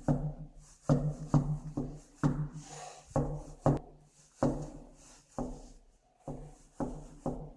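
Someone knocking on a door again and again, in uneven runs of several knocks, about two or three a second, with short breaks between the runs.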